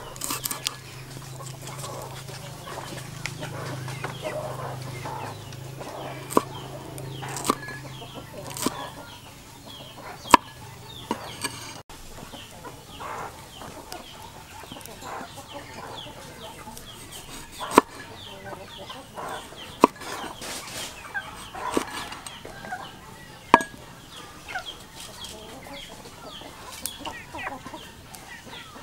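A cleaver chopping and cutting on a wooden chopping board, a string of sharp knocks at irregular intervals, with chickens clucking in the background.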